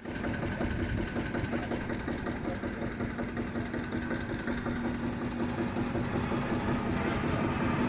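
Lanz Bulldog's single-cylinder hot-bulb two-stroke engine running at low speed, its firing strokes coming in a rapid even rhythm and growing slightly louder near the end.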